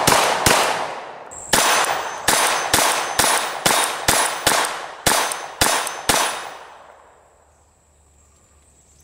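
Pistol fire from a CZ 75 handgun. Two shots, a pause of about a second, then about a dozen quick shots at two to three a second. Each shot rings out briefly, and the last one fades away.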